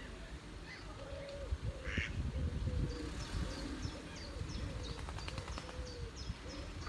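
Mallard ducks quacking, a steady run of short low calls two or three a second, starting about a second in. Small-bird chirps repeat high above them from about halfway through.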